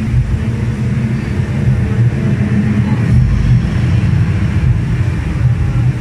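The HSBC Rain Vortex, a 40-metre indoor waterfall, pouring into its basin with a steady low rumble and a fainter hiss of water above it.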